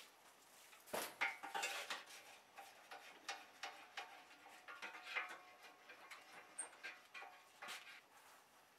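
Scattered light metallic clinks, taps and scrapes as a steel knife blade is handled, busiest and loudest about a second in, then sparse small ticks.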